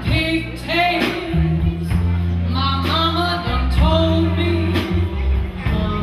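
A woman singing into a microphone over a live band, with sustained bass notes and drum hits under her voice.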